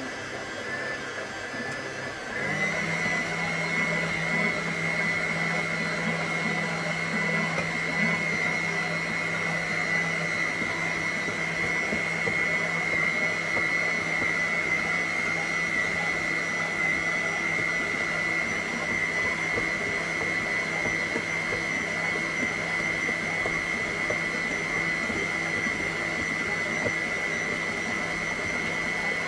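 Electric stand mixer motor running steadily with a high whine while mixing bread dough. About two seconds in its pitch and loudness step up and then hold steady.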